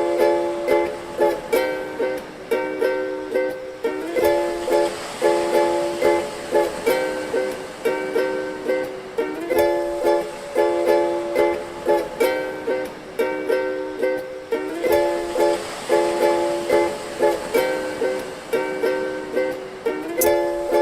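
Background music: a ukulele hip-hop instrumental, plucked ukulele chords over a steady beat.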